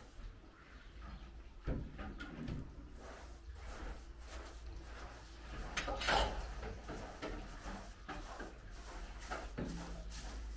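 Loose wooden planks scraping and knocking against the floor as they are shifted, mixed with the brushing of a short straw hand broom. The loudest single knock comes about six seconds in.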